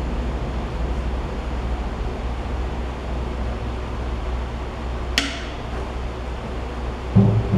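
A steady low hum with a single sharp metallic clink of a hand tool against metal about five seconds in, and a short low-pitched sound near the end.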